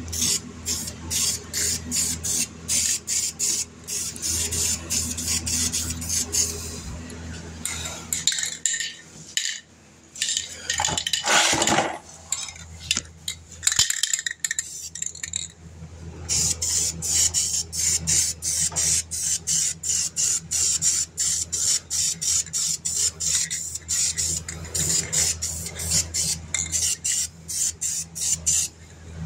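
Aerosol spray-paint can being shaken hard, its mixing ball clacking rapidly and evenly, several strokes a second, with a pause about halfway and a short hiss of spraying around eleven seconds in.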